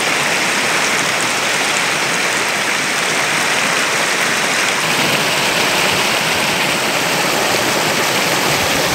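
Muddy floodwater rushing and spilling over a low earth ledge: a loud, steady, unbroken rush of churning water.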